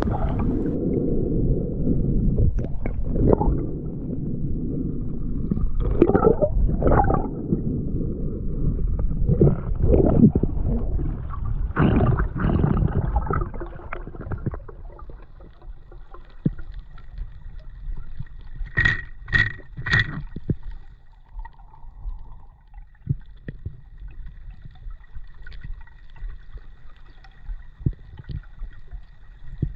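Water gurgling and sloshing around a spearfisher's camera, loud and churning for about the first half, then dropping to a quieter underwater hush. Over the hush runs a faint steady whine, with three sharp clicks in quick succession about two-thirds of the way in.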